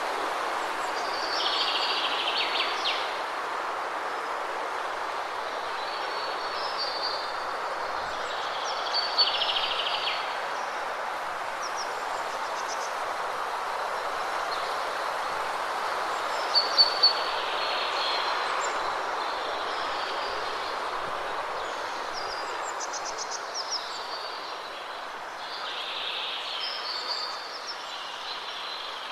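Steady rush of falling water from a waterfall, with birds chirping in short phrases every few seconds over it.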